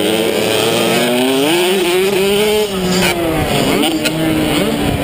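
65cc two-stroke motocross bike engine, heard from on board at full race pace. The pitch climbs steadily, drops off sharply about three seconds in as the throttle is eased, then picks up again, with wind rush over it.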